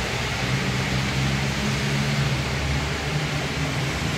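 Steady hiss of heavy rain falling, with a low hum of vehicle engines on the wet street underneath.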